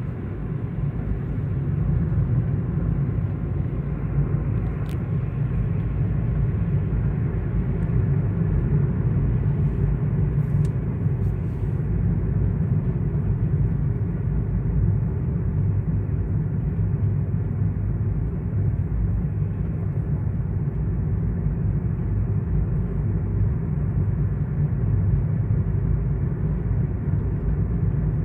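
An engine running steadily, deep and even, with a few faint clicks about five seconds in and again around ten to twelve seconds in.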